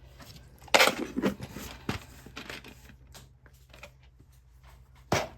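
Handling noise: rustling with a series of sharp clicks and knocks, the loudest about a second in and another near the end.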